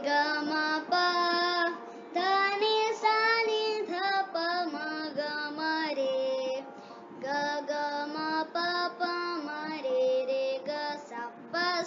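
A child singing an Indian classical vocal melody in long held, ornamented notes, phrase by phrase with short breaths between.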